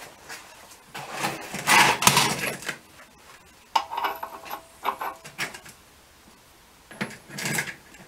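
Metal tools handled on a steel workbench while a wrench is tried on a bearing puller's hex. Scraping and rubbing about one to three seconds in, then a metallic clink with a short ring about four seconds in, and more clatter near the end.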